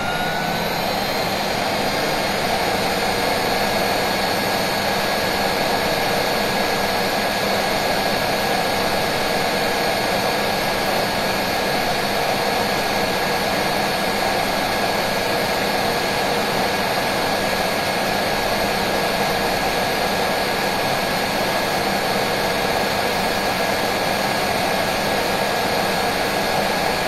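Truper 12092 23-litre wet/dry shop vacuum running at full speed: a steady high whine over a rush of air. It finishes spinning up within the first second.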